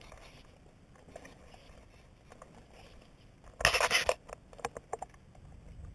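Faint scraping and small clicks of climbing rope and hardware while hauling up a 3-to-1 pulley system by the arms. About three and a half seconds in comes a short, loud rubbing scrape as fingers brush against the camera, followed by a few clicks.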